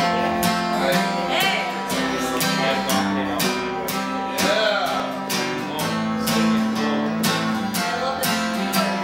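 Acoustic guitar strummed in a steady rhythm, playing a song's instrumental intro.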